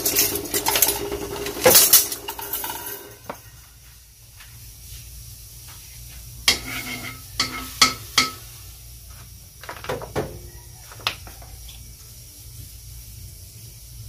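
Cookware clatter: sharp knocks and ringing clinks of a spatula and pans against a metal wok, a loud pair about two seconds in, a quick run of clinks around seven to eight seconds, and a few more near ten and eleven seconds.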